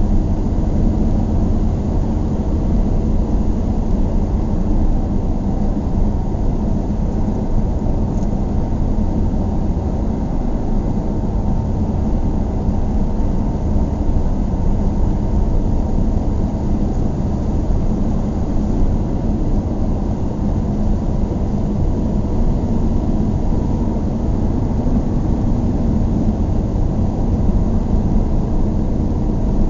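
Steady low rumble of engine and road noise heard inside the cabin of a moving car, with a faint steady hum and no change in level.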